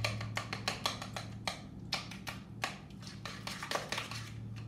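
Spoon clicking and scraping against the sides of a mixing bowl as cooked egg yolks are mashed into a mayonnaise filling, an irregular run of about three clicks a second.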